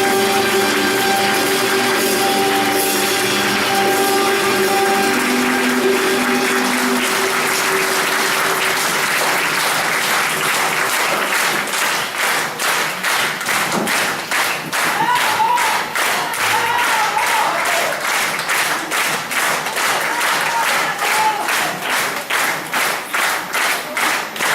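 Strings music ends about seven seconds in as audience applause swells, settling into rhythmic clapping in unison from about twelve seconds on, with a voice calling out a few times over it.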